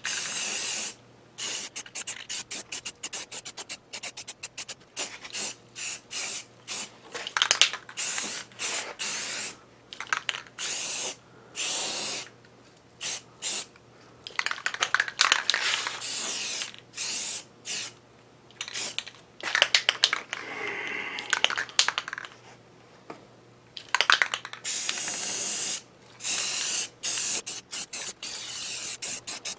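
Primer being sprayed onto metal lathe parts in many short hissing bursts, some brief and some a second or two long, with quiet gaps between the passes.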